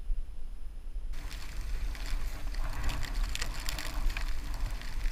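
A fish netted from the water beside an aluminium boat: splashing with irregular knocks and rattles, starting suddenly about a second in, over a steady low rumble.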